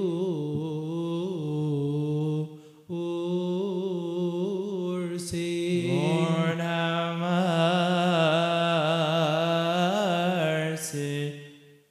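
Coptic Orthodox liturgical chant by men's voices, singing long, wavering held notes. There is a brief pause a few seconds in, and the chant grows fuller and louder from about halfway through before dying away at the end.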